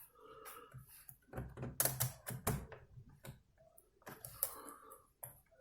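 Laptop keyboard being pressed down into the chassis: a scatter of plastic clicks and key clacks as it snaps onto its latches, thickest in the first half.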